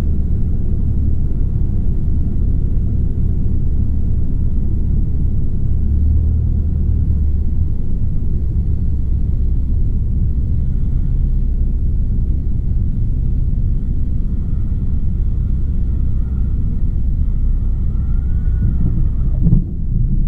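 Cessna 172's engine and propeller droning steadily at low power in the cockpit through touchdown and the landing roll.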